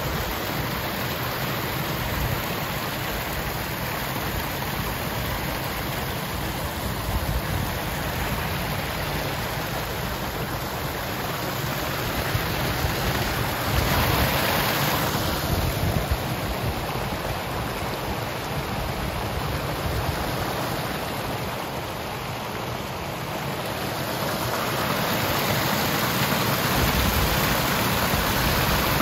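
Steady rush of running floodwater, swelling briefly about halfway and louder again near the end, with wind rumbling on the microphone.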